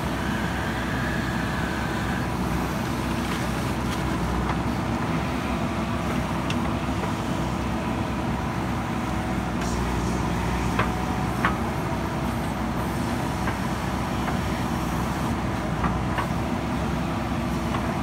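JCB 3DX backhoe loader's diesel engine running steadily under load as the backhoe arm digs, with a few sharp knocks around eleven seconds in and again near the end.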